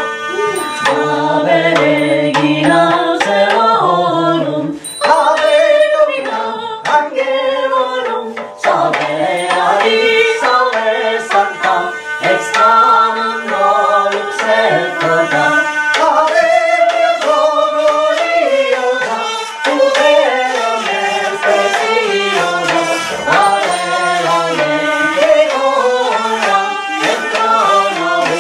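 Three voices singing a Latin three-voice polyphonic cantio, accompanied by a hurdy-gurdy's steady drone and a tromba marina, with brief breaks between phrases.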